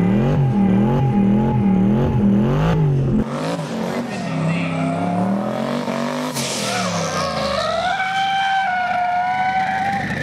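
Twin-turbo LS V8 in a Nissan 350Z drift car, its revs rising and falling again and again under throttle, heard from inside the cabin. About three seconds in the sound switches to the car heard from outside, and from about halfway the tyres squeal steadily in a long smoky slide.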